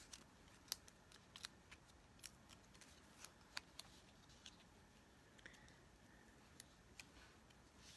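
Faint, scattered small clicks and ticks of paper and card-making supplies being handled on a desk, irregularly spaced, the sharpest click less than a second in.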